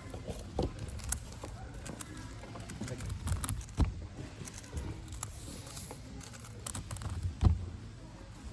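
Magnetic Megaminx puzzle being turned quickly, an irregular plastic clacking with a few sharper knocks, over the murmur of voices in a hall.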